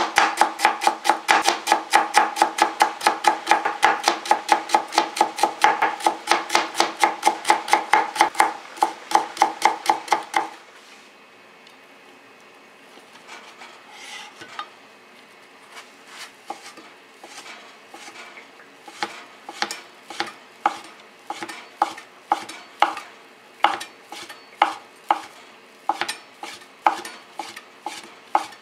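A chef's knife chopping julienned carrots quickly on a cutting board, about five even cuts a second. About ten seconds in the fast chopping stops, and softer, slower cuts through fried tofu (aburaage) follow, settling into about two a second.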